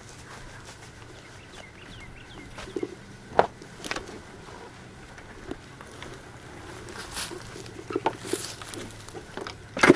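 A person moving around and handling a parked dirt bike: scattered light knocks, clicks and rustles, with two sharper clicks about three and a half and four seconds in. A faint steady low hum lies underneath.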